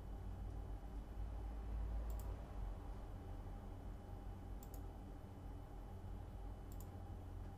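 Three computer mouse clicks a couple of seconds apart, over a steady low hum.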